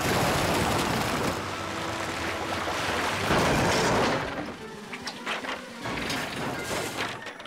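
Cartoon sound effects: a loud rushing noise for about four seconds, then a few light knocks, over background music.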